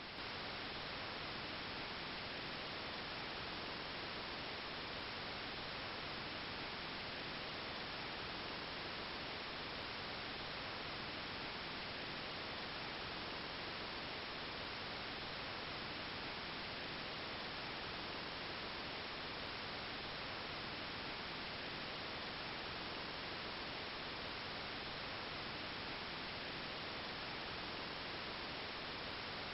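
Steady, even hiss of static-like noise with no other sound in it, stepping up slightly in level just after the start.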